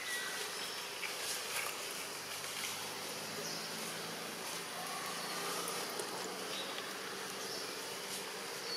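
Insect buzzing over a steady background hiss, the buzz strongest through the middle.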